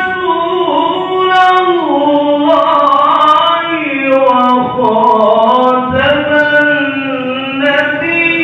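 A single voice chanting Qur'an recitation (tilawah) in the melodic qiro'ah style, holding long notes that glide down and back up in ornamented turns.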